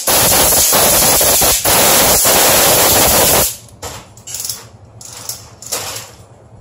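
A compressed-air blast of about three and a half seconds with a fast rattling flutter, followed by several short hissing puffs and light knocks.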